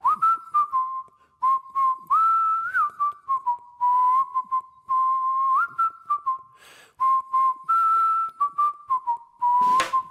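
A simple tune whistled, held mostly on one note with brief hops up a step or two and back, broken by short sharp clicks between the notes.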